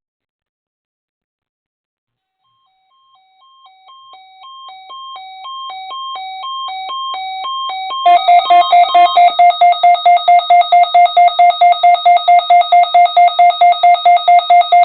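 Weather alert radio's alarm sounding for the NOAA Weather Radio warning alarm test: beeps alternating between two pitches that start faint a few seconds in and grow steadily louder, then about eight seconds in switch to loud, rapid beeping at about five beeps a second.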